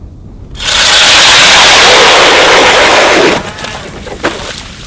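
An ION Alpha battery-powered ice auger drilling a hole through thick lake ice. It starts about half a second in, runs loud and steady for nearly three seconds, then stops abruptly.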